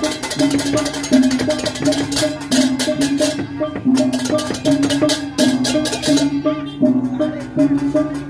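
Balinese processional gamelan playing: rapid, driving clashes of ceng-ceng hand cymbals over a low two-note figure on tuned metal percussion that alternates steadily, with a hanging gong struck. The cymbals drop out briefly twice, about three and a half and six and a half seconds in.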